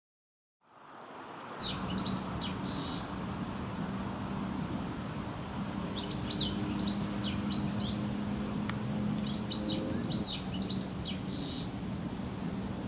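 Small birds chirping in three short bouts over a steady outdoor hiss and a faint low hum, fading in after a brief silence at the start.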